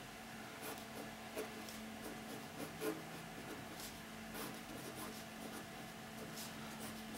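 Faint scratching of a pen writing on paper in short, irregular strokes, over a steady low hum.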